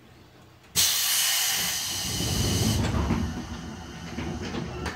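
A sudden loud burst of compressed-air hiss from the 211 series train's pneumatic system about a second in, while the train stands still. The sharp hiss lasts about two seconds, then gives way to a lower rumbling release that fades out.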